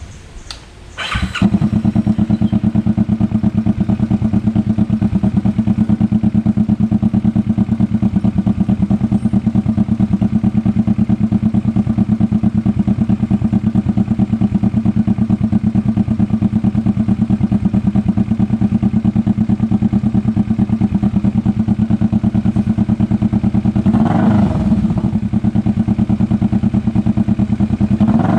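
Kawasaki Vulcan S 650's parallel-twin engine through an Orion full-system aftermarket exhaust. It starts about a second in, then idles steadily with an even pulse, and is revved briefly twice near the end.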